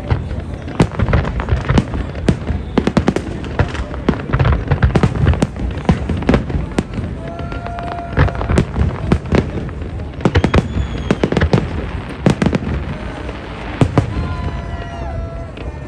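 Aerial fireworks display: a dense, unbroken run of sharp bangs and crackling shell bursts, several a second, over a low rumble.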